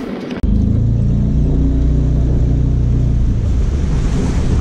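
Boat's outboard motor running loud and steady at speed, cutting in abruptly about half a second in.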